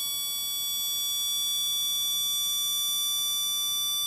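Homemade electronic beeper sounding through its small loudspeaker: one steady, high-pitched, unbroken tone. It is held on by a relay that pulled in when the 433 MHz doorbell transmitter's signal was received.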